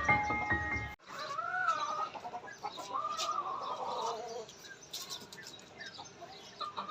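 Chickens calling: two drawn-out arched calls, the second about a second and a half long and falling at its end, followed by faint small-bird chirps.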